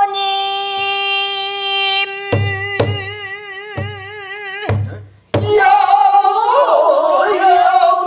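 A woman singing pansori: one long held note that breaks into a wide, slow vibrato, with about five strokes on a sori-buk barrel drum beaten with a stick. A little past five seconds a fuller singing starts, several voices singing the phrase together.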